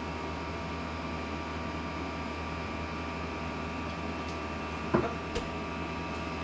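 Steady room hum, with one sharp knock about five seconds in and a lighter click just after.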